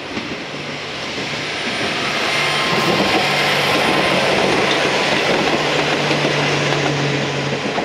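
Two-car KiRo 47 'etSETOra' diesel railcar passing close by: a steady diesel engine hum over rail and wheel noise. It grows louder as the train draws near and is loudest from about three seconds in until near the end.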